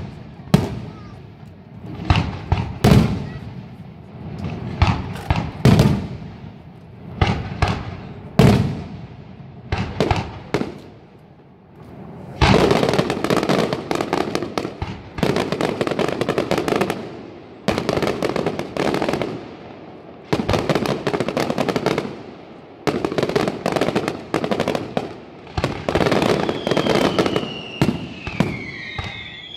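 Aerial fireworks display: shells bursting in separate sharp bangs about a second apart, then, from about twelve seconds in, dense crackling barrages of rapid reports in long runs with short breaks between them. A gliding whistle comes in near the end.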